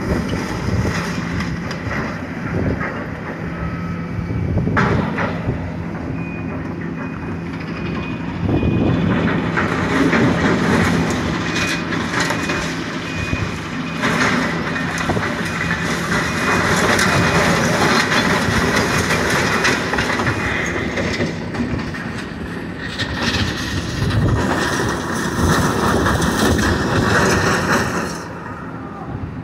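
Tracked demolition excavator at work in building rubble: its diesel engine running steadily under a continuous clatter and crunch of sheet metal, concrete and debris being grabbed and dragged by the bucket. The noise eases shortly before the end.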